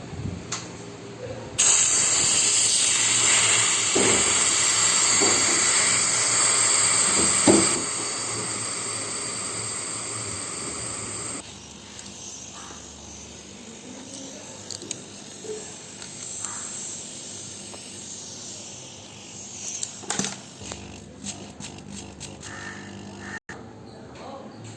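Pressurised gas hissing out of an air-conditioner refrigerant line. It starts suddenly, stays loud for about six seconds, then fades and cuts off about eleven seconds in, followed by a few faint knocks of handling.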